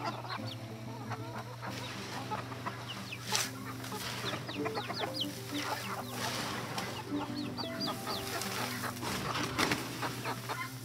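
Chickens, the rooster among them, clucking close by, with quick high chirps in two short runs, while dry grain and sunflower seed rustle as hands scoop through it in a plastic tote.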